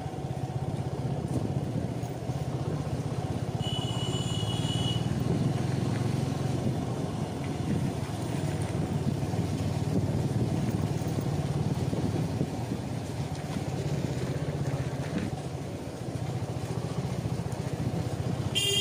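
Motorcycle engine running steadily on the road, with a brief high-pitched tone about four seconds in.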